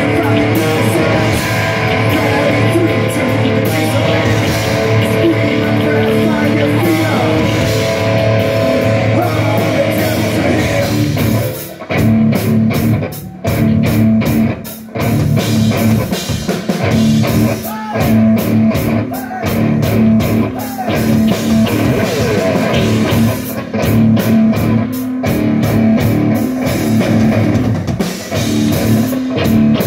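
Live rock band playing loud: distorted electric guitar, bass guitar and drum kit. About twelve seconds in, the playing turns stop-start, with short breaks between hits.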